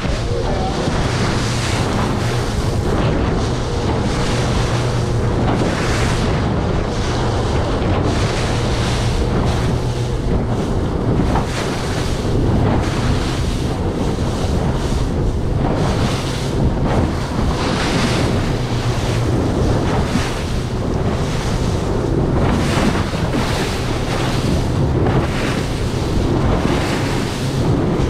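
A Stabicraft 2050 aluminium boat running at cruising speed through choppy water: a steady outboard engine drone under heavy wind on the microphone, with the hull slapping into the waves and spray hitting again and again.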